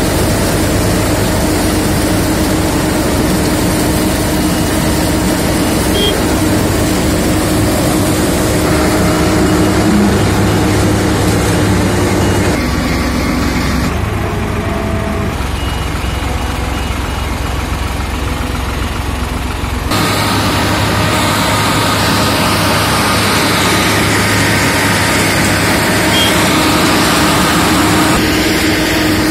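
Tractor engine running steadily, powering a tractor-mounted sugarcane harvester as it cuts and feeds standing cane. The mechanical noise stays continuous, turning duller for several seconds past the middle before returning to full.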